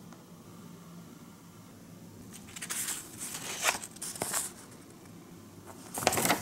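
Paper and plastic packaging being handled and rustled, with several short bursts of crinkling starting about two and a half seconds in and another near the end, as a folded paper instruction sheet is taken out and opened.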